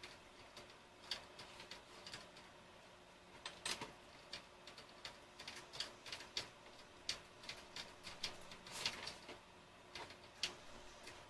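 Faint, irregular light clicks and scratchy strokes of an eyebrow pencil being drawn through the brows.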